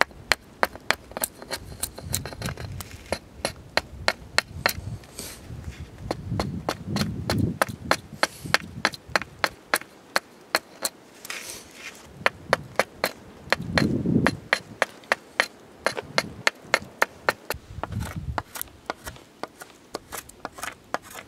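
Small axe chopping repeatedly into a hazel-wood ski, sharp strokes about three a second with brief pauses, shaving the underside round. A few dull low rumbles sound between the strokes.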